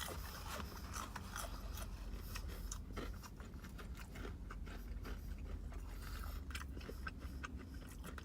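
Faint crunching and chewing of crisp fried popcorn chicken: many small, irregular crisp clicks over a low steady hum.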